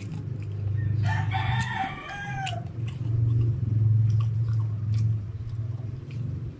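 A rooster crowing once, a wavering call of about a second and a half that drops in pitch at the end, over a loud low hum that swells in the middle and fades near the end.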